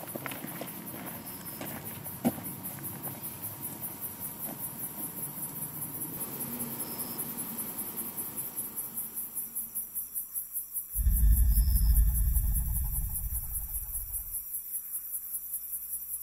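Insects chirping in a steady pulsing rhythm. About eleven seconds in, a sudden deep rumble comes in loudly and fades away over about three seconds.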